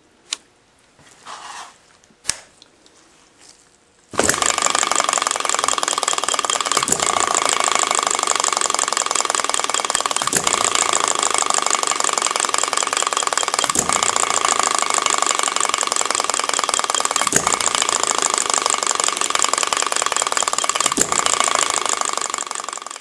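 Upshur model hit-and-miss engine running, its governor fitted with standard springs and weights twice as heavy: a loud, fast, steady clatter that starts suddenly about four seconds in, with a louder knock about every three and a half seconds. A few faint clicks come before it.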